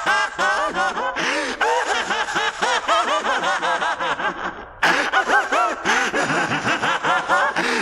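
A man's maniacal villain laugh from a Japanese anime voice track: fast, unbroken 'ha-ha-ha' cackling. It breaks off briefly just before the fifth second, then bursts out again louder.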